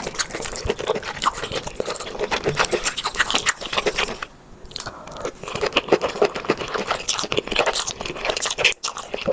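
Close-miked chewing and crunching of seafood: rapid crunchy bites and mouth sounds, with a brief pause about four seconds in.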